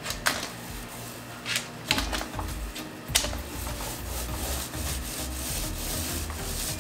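Small paint roller being rolled over a painted cupboard panel during a third coat of paint, a steady low rubbing sound starting about two seconds in. A few sharp clicks come in the first three seconds.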